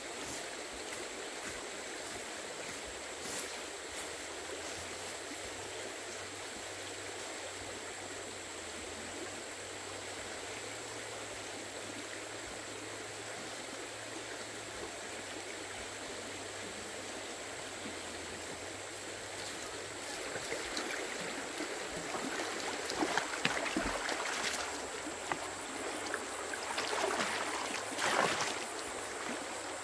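Steady rushing of flowing water, like a stream. In the last third there are irregular louder knocks and rustling over it.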